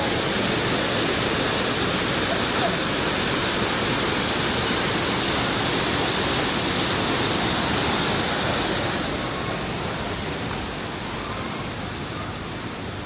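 Rushing water of a mountain stream, a steady hiss; it turns quieter and duller about nine seconds in.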